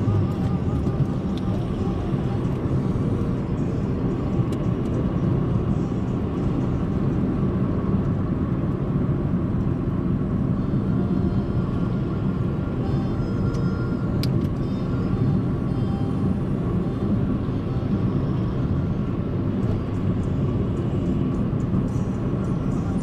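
Steady rumble of a vehicle driving on a highway, engine and tyre noise holding even throughout.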